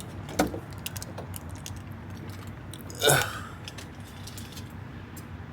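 A person chewing and biting into McDonald's drive-thru food close to the microphone, with small wet clicks and crunches. There is a brief voice-like murmur about three seconds in.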